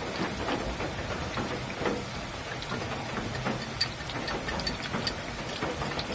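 Sliced bananas deep-frying in hot oil in a wok: a steady sizzle with many small pops and crackles.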